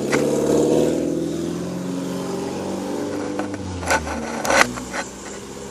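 A car engine running, its pitch rising in the first second and then slowly falling, with a few sharp knocks near the end.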